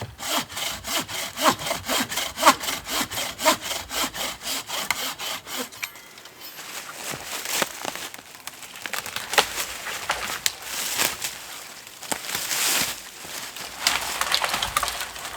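Bucksaw cutting through dense wood: quick, even back-and-forth strokes for about six seconds, then slower, uneven sawing with scattered sharp cracks of the wood.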